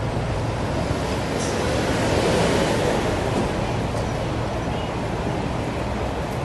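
Steady city street noise: a constant wash of road traffic, swelling slightly about two seconds in.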